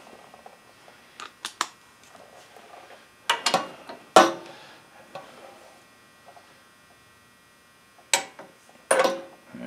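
Sharp metal clicks and clinks of a socket, extension and torque wrench being fitted onto a cylinder head bolt, with a louder knock about four seconds in and two more clicks near the end.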